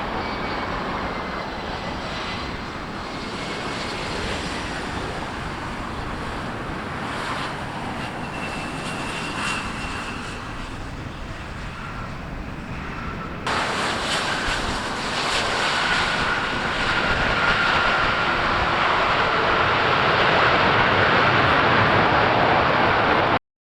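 Jet airliner engines rumbling. About halfway through, the sound jumps suddenly louder and a steady high engine whine comes in, growing louder until it cuts off abruptly near the end.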